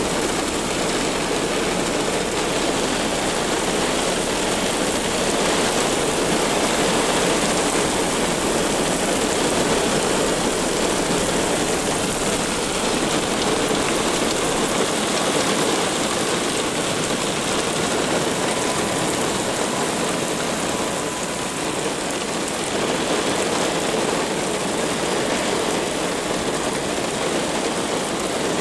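Heavy thunderstorm downpour: a steady rush of rain pouring onto pavement.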